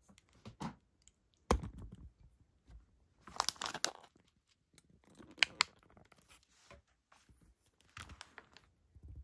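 Crinkling and rustling of a wrapper being handled, in several short bursts of sharp crackles with pauses between.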